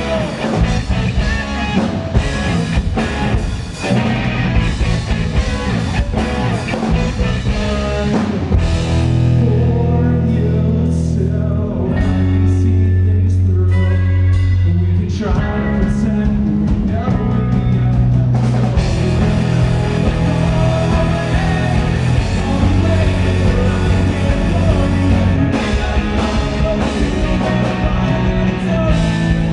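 Rock band playing live, with electric guitar and drums at full volume. Long, heavy low notes are held through the middle of the passage.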